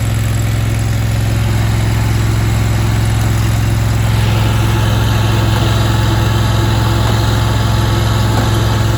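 A 23 hp RATO V-twin gas engine on a mini skid steer running steadily. A higher steady tone joins it about four seconds in.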